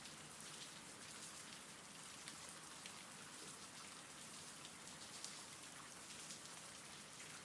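Faint, steady rainfall: a soft, even hiss with a light patter of drops.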